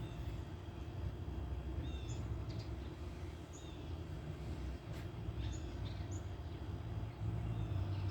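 Outdoor ambience: a steady low rumble with a handful of short, high bird chirps scattered through it.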